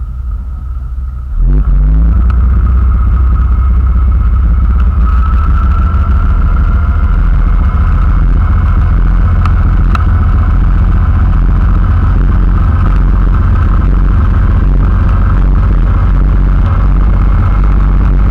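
Motorboat engine throttling up hard about a second and a half in, its pitch briefly rising, to pull a knee boarder up out of the water. It then runs at speed with a steady low rumble over the rush of the churning wake.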